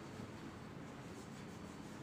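Faint scratchy rubbing of a wax crayon colouring on paper, over steady room noise.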